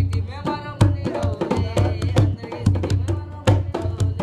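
Music for a Rajasthani string-puppet dance: a hand drum beating a steady rhythm of about two to three strokes a second, each with a deep thud, with a voice over it.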